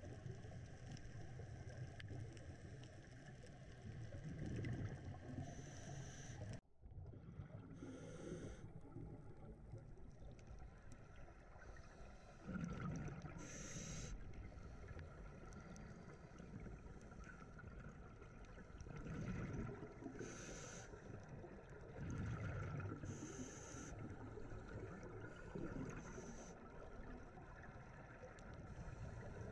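Underwater ambience recorded through a camera housing: a low rumble, with the gurgling hiss of a scuba diver's exhaled regulator bubbles coming every few seconds, about five times. There is a brief dropout about seven seconds in.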